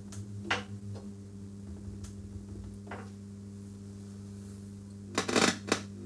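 Epiphone Valve Special tube guitar amp humming steadily, with a few faint clicks. About five seconds in comes a burst of loud crackling and popping as a front-panel pot is turned: the fizz-and-crackle fault, which the repairer suspects comes from that pot or its solder connections.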